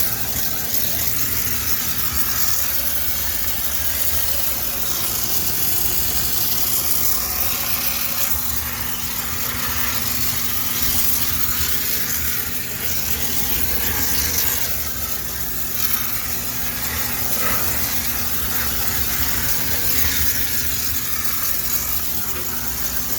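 High-pressure steam cleaner running steadily: a machine hum under a continuous hiss of steam.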